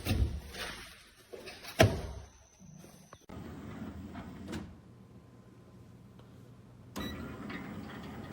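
Sharp SMD2470ASY microwave drawer sliding on its motorized drawer mechanism, with a knock at the start and a sharp click a little under two seconds in. A low steady hum follows.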